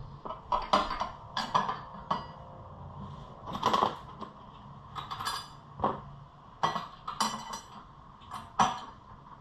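Irregular metallic clinks and knocks of hand tools and metal clamps being handled while fitting snorkel ducting, about a dozen, with louder clanks about a second in, near the middle and near the end.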